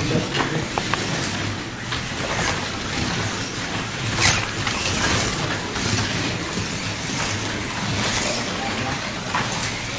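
Scalextric slot cars running on a multi-lane track: a steady whir of small electric motors, with a brief louder pass about four seconds in.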